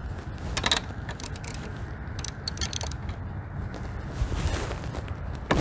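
Socket ratchet clicking in short bursts while loosening a spark plug on a two-stroke outboard motor.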